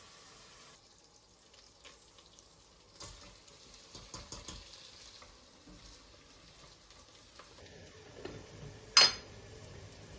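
Lentil soup cooking in a pot: light sizzling and stirring with a few soft clinks, then one sharp, ringing clink of metal near the end.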